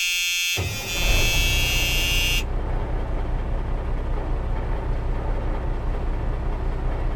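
A vehicle engine running steadily with a low, even rumble. For the first couple of seconds a steady high-pitched tone sounds over it, like a horn or buzzer, then stops.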